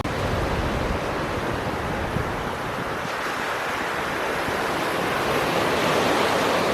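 Ocean surf breaking and washing on a beach: a steady rushing that swells a little in the second half.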